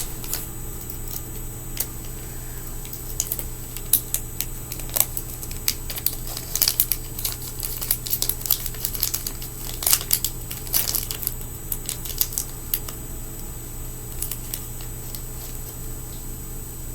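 Irregular small clicks, taps and crinkles of fingerboard parts (wheels, spacers, nuts) and their packaging being handled, over a steady background hum.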